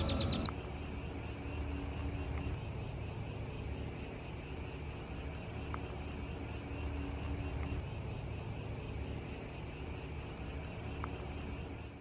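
Tropical rainforest insect chorus: a steady, high-pitched, finely pulsing buzz of many insects. Background music cuts off about half a second in.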